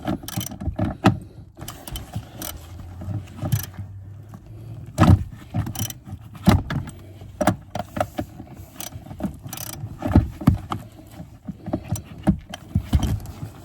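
Ratchet wrench and socket working on a seat-mounting bolt, giving irregular metallic clicks and clinks with no steady rhythm.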